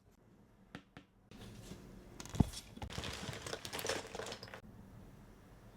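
Cardboard jigsaw puzzle pieces being handled and sifted: a rustling, crinkly clatter with small clicks, and one sharp knock about two and a half seconds in.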